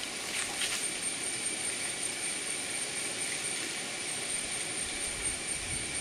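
Steady jungle background: an even hiss with a constant high-pitched whine and a fainter, lower steady tone beneath it.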